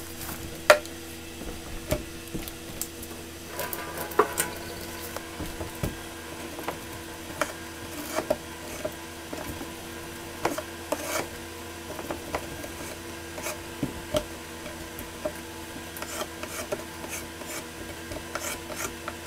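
Swiss Army pocket knife and food being handled: irregular light taps, clicks and scrapes over a steady faint hum.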